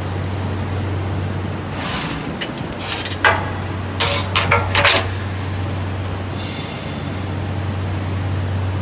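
CNC profile roll bending machine running with a steady low hum, with a burst of sharp metallic clattering and scraping around the middle and a brief high hiss shortly after.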